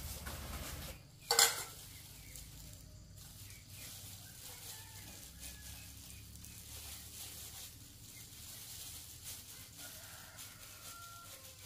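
Thin plastic gloves and a plastic sheet crinkling and rustling as gloved hands shape soft cassava dough cakes, with one loud brief crackle about a second in.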